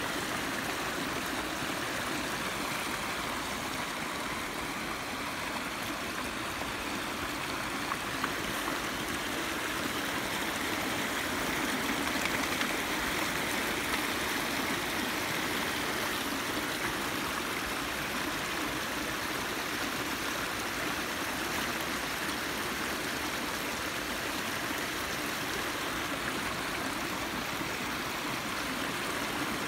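Shallow stream running over rocks and small drops: a steady rush of water, a little louder around the middle.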